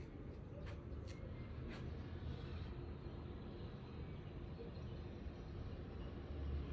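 Steady low rumble of background noise, with a few faint, short high chirps in the first two seconds.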